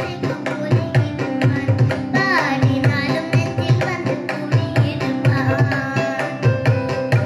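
Live Indian devotional song in Carnatic style: a child's voice sings melodic phrases with pitch glides over regular tabla strokes and steady held notes from an electronic keyboard.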